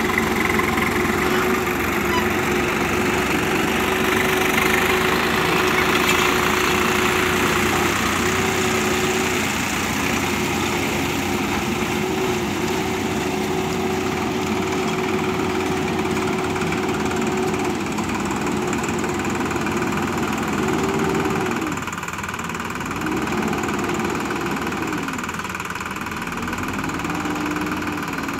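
Diesel engine of a JCB backhoe loader running at high, steady revs while the backhoe digs; in the last several seconds the revs drop and climb back again three or four times.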